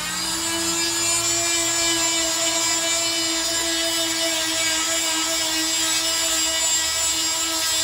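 Corded triangular-pad power sander running at a steady, even whine while sanding the end grain of a wooden 6x6 post flush.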